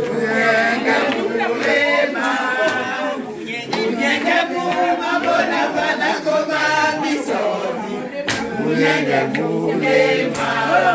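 A group of people singing together without instruments, a chant-like song carried by many overlapping voices.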